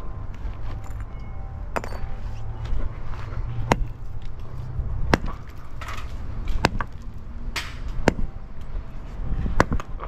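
Sledgehammer striking a broken concrete curb in gravel: six sharp blows about a second and a half apart, with fainter clinks of concrete chunks in between.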